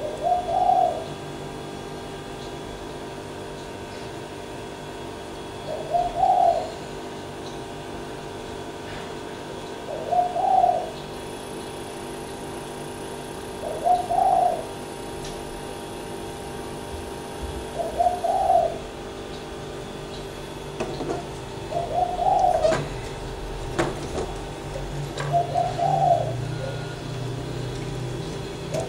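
A dove cooing: a short low call repeated about every four seconds, over a steady background hum.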